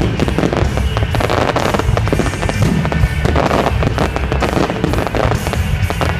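Fireworks going off in quick, irregular bangs and crackles, mixed with loud background music.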